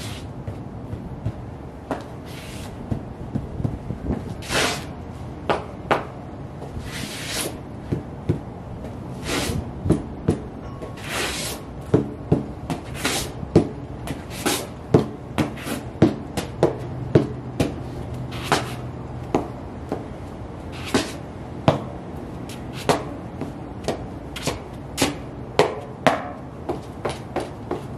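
UGG sheepskin boots tapping and stepping on a concrete floor: a run of irregular knocks that comes faster and denser in the second half, with a few brief scrapes of the soles in the first half.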